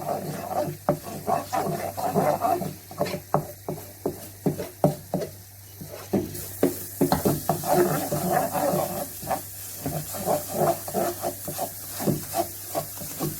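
Thickening, caramelizing condensed milk toffee being stirred in a frying pan: a utensil scraping and slapping through the sticky mass in repeated quick strokes, a few a second.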